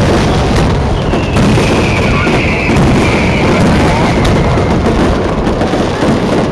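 Aerial fireworks bursting, a dense run of crackles and pops from crackling stars, with a high whistle held from about one second to four seconds in.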